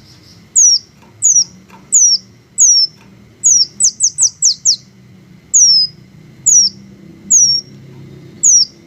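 A small bird, the kind kept and sold as a 'green hummingbird', repeats sharp, high whistled call notes that slide down in pitch. The notes come about one every half second to second, with a quick run of five together about four seconds in.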